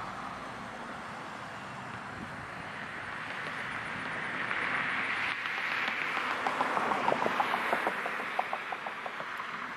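Outdoor traffic ambience: a passing vehicle's noise swells to a peak around the middle and fades away, with a run of quick ticks in the second half.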